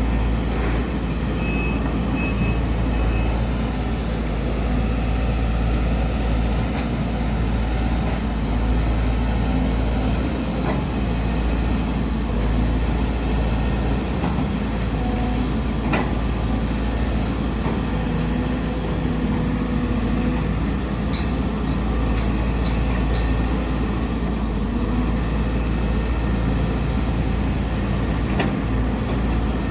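A large engine running steadily without changing speed, with a few sharp clicks over it.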